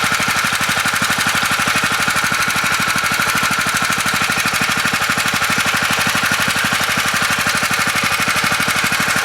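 Small engine-driven water pump running steadily, its engine firing in a rapid even pulse while it pumps out floodwater.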